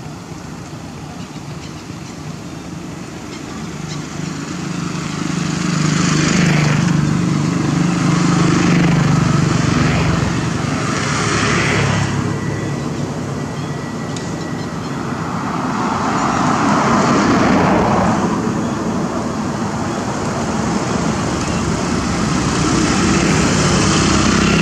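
Motor vehicle traffic running nearby: a low engine hum with road noise that swells a few seconds in, then rises and falls in waves.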